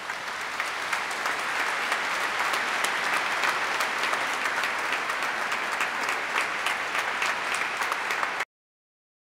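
Congregation applauding steadily, a dense patter of many hands clapping, which cuts off suddenly near the end.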